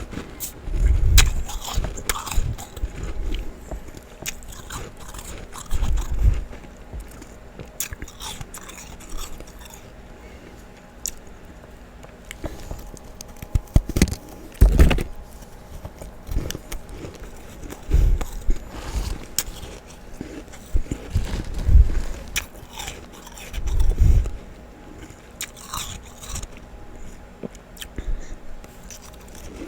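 A person biting and chewing soft freezer frost and ice chunks close to the microphone: crisp crunches and crackles come in clusters, with a heavier bite every few seconds.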